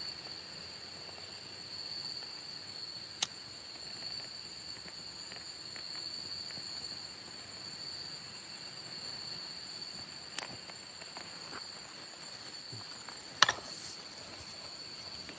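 A steady, high, two-pitched chirring of night insects, with three sharp clicks about three, ten and thirteen seconds in, the last the loudest.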